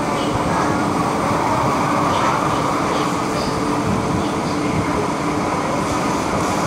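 Electric metro train running along the track, heard from inside the driver's cab: a steady rumble of wheels on rails with a faint steady hum.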